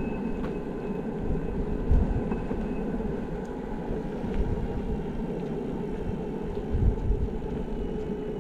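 Backfire Zealot electric skateboard rolling along a paved trail: a steady rumble of wheels on asphalt mixed with wind buffeting a helmet-mounted microphone, with gusty thumps about two seconds in and again near seven seconds. A faint high whine fades out about three seconds in.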